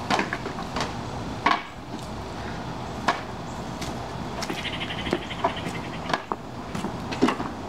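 A handful of sharp knocks and clacks a second or two apart, hard objects being handled and set down, over a steady background hiss.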